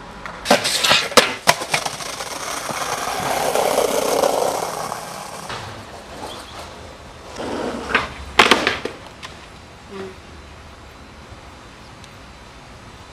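Skateboard on pavement: a clatter of sharp board impacts about half a second in, then wheels rolling over the ground, growing louder and fading out, and another set of clattering board hits about eight seconds in.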